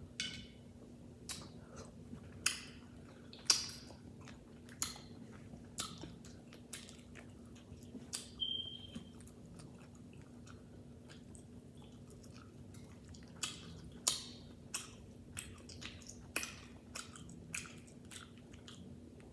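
Close-miked mukbang eating sounds: chewing and irregular sharp clicks and crackles as meat is picked out of a lobster tail shell. A faint steady low hum runs underneath.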